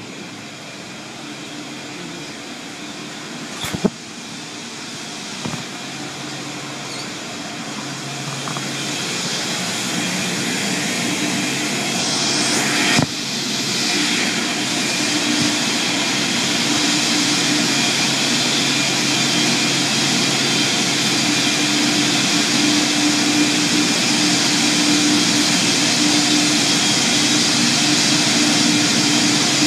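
Automatic car wash equipment running: a steady rushing noise over a low hum, growing louder through the first half and then holding. Two sharp knocks come about four seconds in and again about thirteen seconds in.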